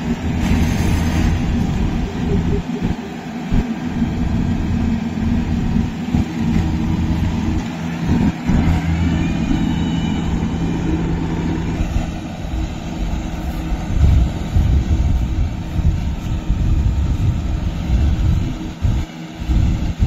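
Yanmar 70GV rice combine harvester cutting and threshing: its diesel engine and threshing machinery make a steady, loud drone with a constant low hum.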